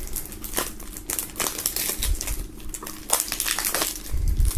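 Plastic shrink-wrap crinkling and crackling irregularly as it is peeled off a CD jewel case, with a couple of dull bumps about halfway and near the end.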